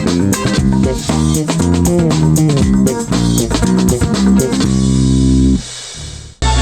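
Funky band music with a prominent bass guitar and plucked guitar lines over light drums, played back as a sound test of Hifiman HE400se planar magnetic headphones. Near the end a chord is held, then the music drops quieter with a brief break.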